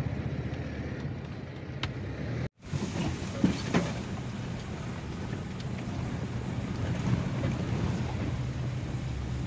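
Steady engine and road rumble from inside a moving car on a rough dirt track, with wind on the microphone. It cuts out briefly about two and a half seconds in, and a few short knocks or rattles follow soon after.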